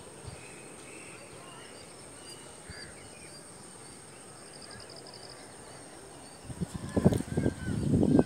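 Faint scattered bird chirps over a quiet outdoor background; from about six and a half seconds in, loud, irregular low buffeting on the microphone takes over.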